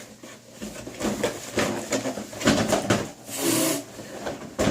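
Plastic toy packaging being handled and pried at as a Nerf blaster barrel is worked out of its box: scattered clicks and knocks, with a louder hissing scrape about three and a half seconds in.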